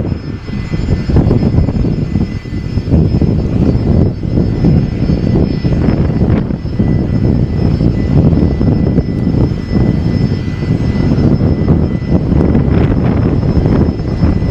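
Gulfstream business jet's twin rear-mounted turbofans running as it rolls along the airfield: a loud, rough, steady roar, with a thin steady whine added about six seconds in.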